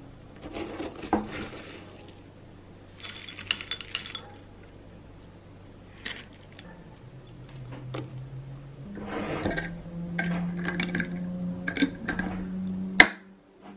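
Dry granola taken by hand from a glass jar and dropped into a ceramic bowl: scattered rustling and light clinks of glass and china, with one sharp clink near the end.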